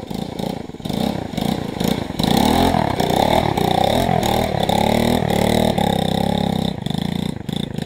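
Snorkeled Coolster 110 pit bike's single-cylinder four-stroke engine revving under load as it is ridden through mud and shallow water. It pulls harder about two seconds in and falls off near the end, bogging down so bad.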